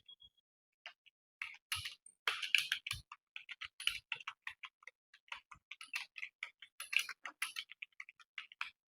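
Typing on a computer keyboard: a quick, irregular run of keystrokes, starting about a second and a half in.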